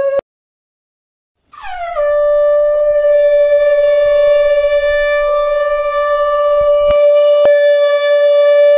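Conch shell (shankha) blown during a Hindu puja aarti. One held note cuts off right at the start; after about a second of silence the conch sounds again, slides down briefly into its note and holds it steadily and loudly.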